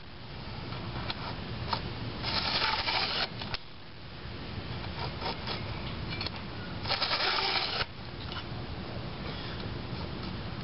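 A 5/32-inch round file rasping across a chainsaw chain's cutter tooth in forward strokes, sharpening it. The clearest, longest strokes come about two and a half seconds in and again about seven seconds in, with fainter scrapes between.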